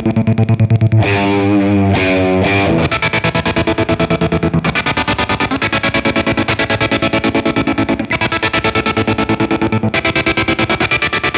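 Distorted electric guitar chopped on and off in a fast, even rhythm by a kill switch pedal's auto-kill mode. About a second in, the chopping stops for a couple of seconds while a held note is bent and wavers in pitch, then the rapid cutting resumes.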